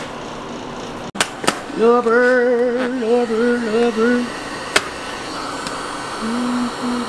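Background music with a sung melody line in two phrases, its pitch wavering, over a steady hiss, with a few sharp clicks.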